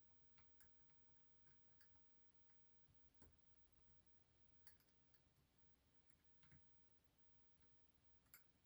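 Faint, scattered light clicks of a dimple lock pick probing the pins and sprung sliders inside a Delta dimple lock, a clone of the DAF Kilit DBS02.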